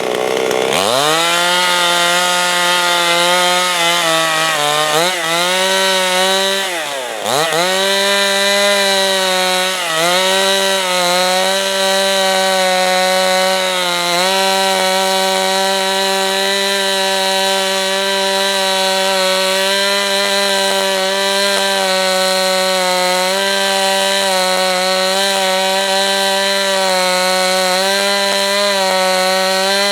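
Two-stroke chainsaw at high revs ripping lengthwise through a pine or spruce log, freehand slab milling. The engine note climbs at the start, sags twice in the first several seconds as the chain bogs in the hard-cutting wood, then holds steady under load.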